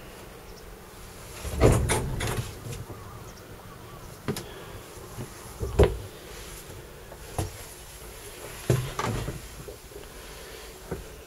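Irregular knocks and thumps of handling and moving about inside a small boat cabin, about seven of them with the loudest near two seconds in, over a faint steady high hiss.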